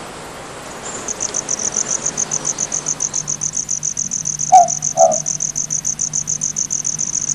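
A night insect chirping in a fast, even pulse of about eight chirps a second. About two-thirds of the way through, a short two-note animal call sounds louder above it.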